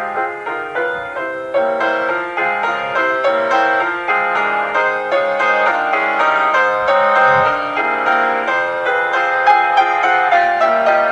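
Solo piano playing a classical piece: a quick run of many short notes in the middle range.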